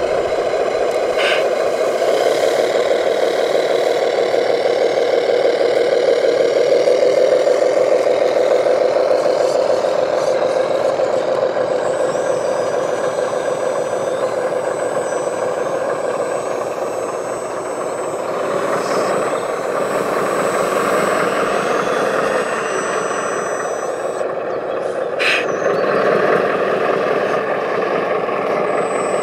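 Radio-controlled model construction trucks running: a steady motor and engine noise that swells and eases slightly, with two brief sharp noises, about a second in and near the end.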